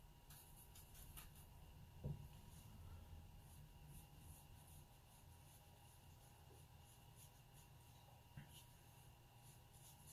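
Faint scratching of a watercolour brush stroking paper in short strokes, over near-silent room tone. A single soft low knock about two seconds in.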